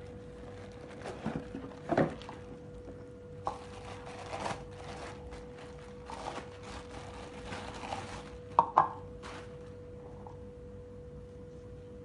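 Handling of a manual steam inhaler's parts and its box: light knocks and rustling, with two sharper knocks about two-thirds of the way through, over a steady faint tone.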